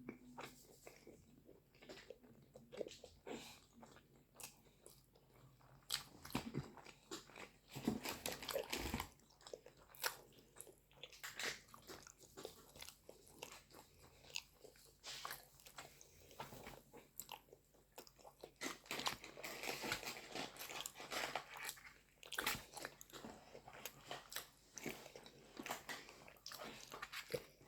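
Close-miked eating of paratha and butter chicken: biting and chewing, with many short clicks and crunches coming unevenly throughout.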